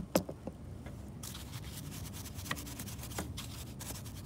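Detailing brush scrubbing all-purpose cleaner into the slats of a plastic interior door-panel vent: a scratchy bristle rubbing in quick, dense strokes. It starts about a second in, after two sharp clicks at the very start.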